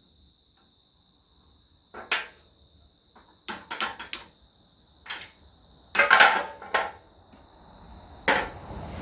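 Hammer and hand tools striking the steel pins and brackets of a tractor's loader bucket: a series of sharp metal clanks and knocks, about eight in all, the loudest in a quick run around the middle.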